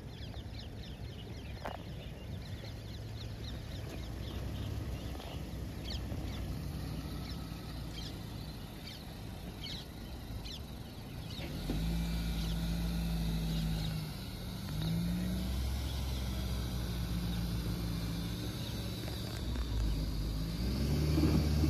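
An off-road SUV's engine running low and steady, then revving up about halfway through. It holds there, with the revs dipping and rising again twice. Birds chirp over the engine in the first half.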